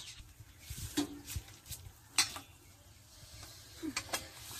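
A few sharp clinks and knocks of kitchen utensils against steel bowls and a pan, the loudest about two seconds in. Under them runs a faint sizzle of egg frying in oil in an iron karahi.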